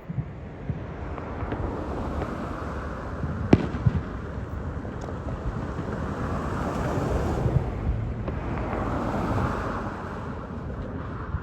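Aerial fireworks display: continuous dense crackling with scattered sharp bangs, the loudest about three and a half seconds in.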